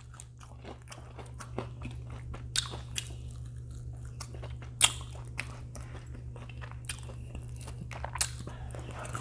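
Close-up chewing and crunching of crispy fried chicken: irregular crackly crunches with a few louder bites, over a steady low hum.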